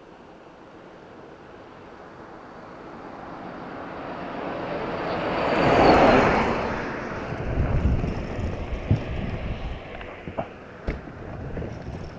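A car or truck approaching and driving past close by, its noise swelling to a peak about halfway through and then fading away. Scattered knocks and clicks follow near the end.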